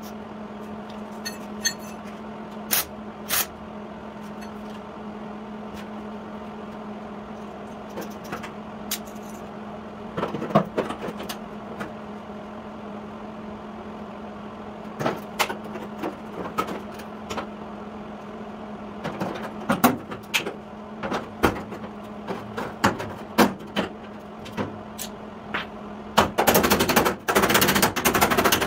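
Body hammer striking the sheet-steel rear fender of a 1953 Chevy truck to rough out damage: scattered single blows at first, coming more often from about ten seconds in, then a fast run of rapid taps near the end. A steady low hum runs underneath.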